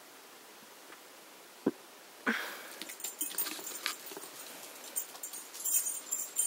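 A dog gives a single short, low woof about a second and a half in. Just after, a louder burst starts a run of rustling and clattering as the camera is handled and swung around.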